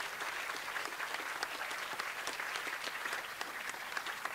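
Audience applause: many hands clapping at a steady level.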